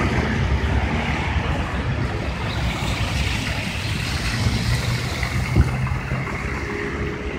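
Road traffic on a slushy street: car engines, with tyres hissing through wet snow as vehicles pass. A single short knock about five and a half seconds in.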